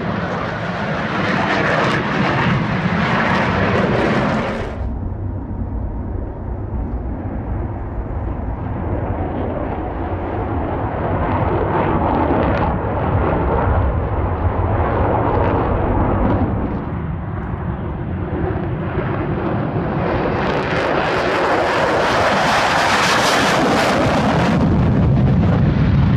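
Jet aircraft engine noise on an airfield: a continuous loud roar that turns duller about five seconds in and swells louder and fuller from about twenty seconds in, as a jet takes off.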